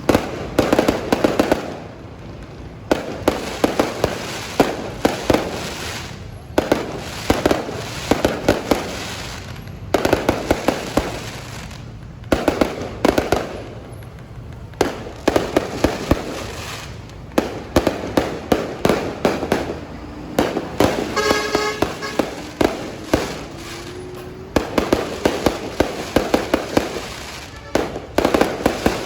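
Fireworks display: volleys of sharp bangs in clusters every couple of seconds, with crackling between them. A brief pitched tone sounds about three-quarters of the way through.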